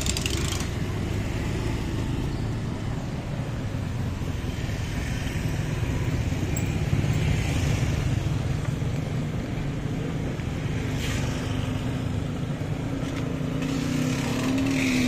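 Motorcycle ride in city traffic: steady engine and road noise, with a few brief swells of other vehicles' sound.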